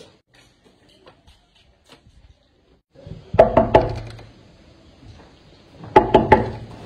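Knocking on a door: two rounds of about three loud knocks, the first about three seconds in and the second near the end.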